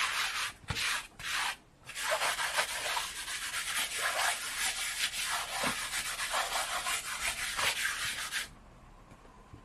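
Charcoal rubbed rapidly back and forth on paper in quick scratchy strokes, laying down a mid tone. It pauses briefly twice near the start and stops about eight and a half seconds in.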